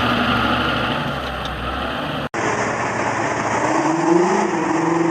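Heavy machinery engines running. Partway through the sound cuts abruptly to a different engine, which revs up briefly and then holds a steady pitch.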